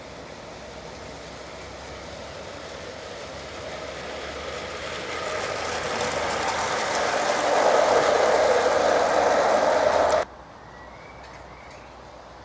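Gauge 1 model train, a locomotive hauling loaded coal wagons, running on garden track. It grows steadily louder as it approaches and passes close by, then cuts off suddenly about ten seconds in.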